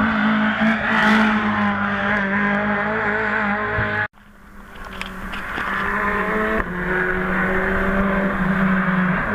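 Race car engine running hard at high revs, its pitch wavering slightly. About four seconds in the sound cuts off abruptly, then an engine fades back in and grows steadily louder.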